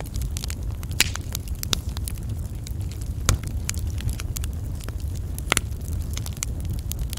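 Wood fire burning, with frequent sharp crackles and snaps over a steady low rumble of the flames; three louder pops stand out, about a second in, near the middle and past the middle.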